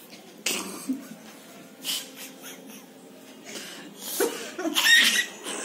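Young girl laughing breathily behind her hand in a few short bursts, loudest near the end.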